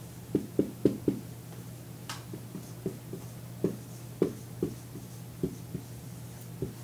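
Scattered light knocks and taps from hands working at a desk, irregular and about one or two a second, over a steady low hum.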